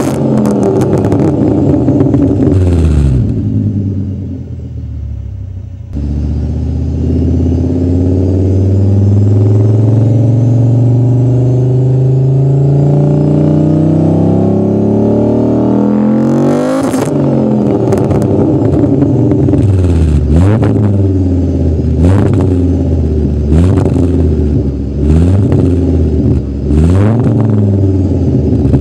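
VW Passat B4's VR5 five-cylinder engine being revved at a standstill, heard at the exhaust. The revs fall away, then climb slowly and steadily to high revs, followed by a series of quick throttle blips that rise and drop sharply, several with a sharp crack at the top.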